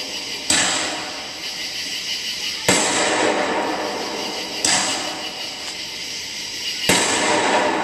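Aerial fireworks shells bursting: four sharp booms about two seconds apart, with a steady hiss between them.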